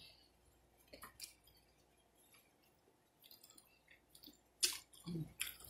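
Close-up mouth sounds of eating a fried chicken wing: scattered wet chews and lip smacks, the loudest about four and a half seconds in, with a brief low hum of voice just after.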